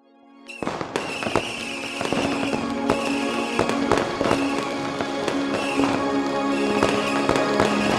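Music with held tones, under many sharp fireworks pops and crackles that start about half a second in.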